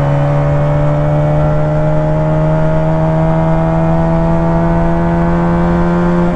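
A 125 cc two-cylinder chopper engine pulling hard in one gear, its pitch climbing slowly and steadily as it revs freely. It is a loud drone, heard from the rider's seat.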